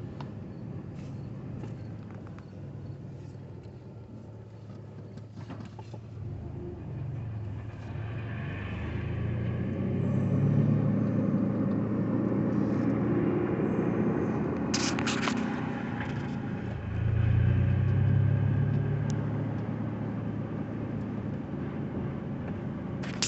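A car driving along the road: steady engine and road rumble that grows louder as it picks up speed about eight seconds in and again about seventeen seconds in.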